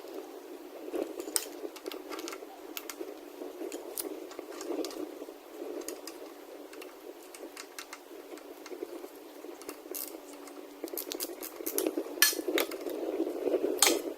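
Metal hand tools clinking and clattering: scattered clicks and knocks, coming thick and fast in a run near the end.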